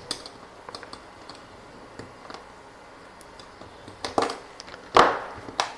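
Flush side cutters snipping the excess leads of components soldered into a circuit board: faint small ticks of handling, then a few sharp snips in the last two seconds.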